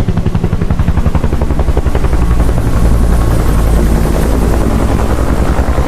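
Boeing CH-47 Chinook tandem-rotor helicopter in flight: rapid, even rotor-blade chop over a steady turbine drone. In the middle the chop blurs into a heavier low rumble, then sharpens again near the end.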